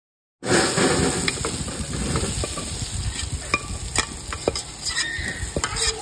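Potato chunks sizzling as they are spooned onto a hot sheet pan in the oven, with sharp clicks of a metal spoon against the pan and pot. The sizzle starts suddenly about half a second in.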